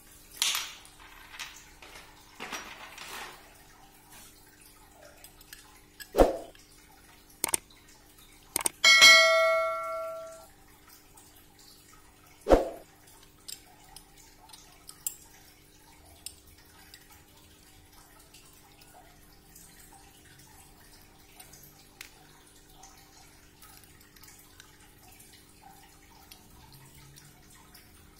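Metal 1.9-inch RC crawler beadlock wheel parts handled and pulled apart: brief rustling at first, then a few sharp clicks and knocks, and about nine seconds in a metal part rings like a small bell for about a second and a half.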